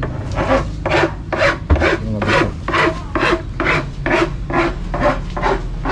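Wood being sanded by hand: steady back-and-forth rasping strokes, a little over two a second, over a low steady hum.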